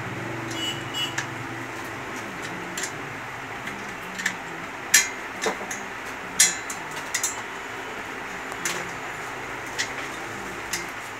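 Sharp metallic clicks and clinks, about a dozen scattered through, as nuts and the rod are fitted and tightened on an iron sewing-machine stand; the loudest come about five and six and a half seconds in. A steady background hum runs underneath.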